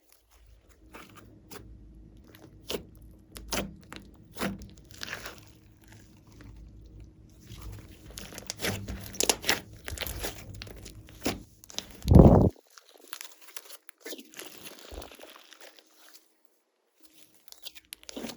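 Slime being kneaded and squeezed by hand, giving irregular crackling, crunchy clicks and pops, with one loud dull thump about twelve seconds in.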